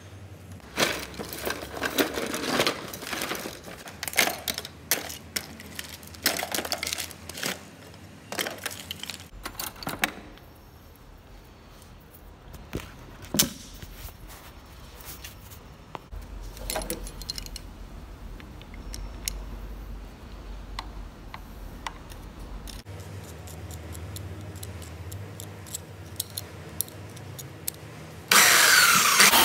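Metal parts of an air compressor clinking and clattering as they are handled, with quieter scattered clicks afterwards. Near the end a belt sander comes in suddenly and loudly, its pitch falling as a threaded fitting is pressed against the belt.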